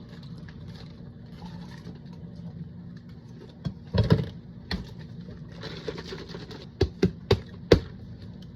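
Drip coffee maker brewing with a steady low hum, with several sharp knocks and clicks about halfway through and near the end.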